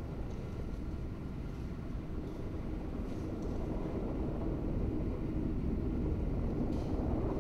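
A steady low rumbling drone that slowly grows louder, with a few faint brief hisses now and then.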